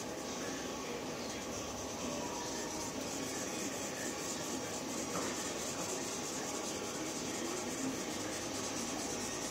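Felt-tip marker rubbing across drawing paper while colouring in, over a steady background hiss.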